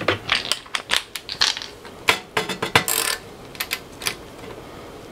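Small metal screws and a screwdriver clicking and tapping against a car radio's sheet-metal chassis as it is put back together, a quick irregular run of sharp clicks that thins out after about three seconds.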